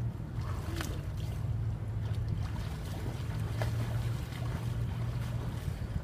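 Light splashing of a swimmer stroking through pool water, over a steady low rumble.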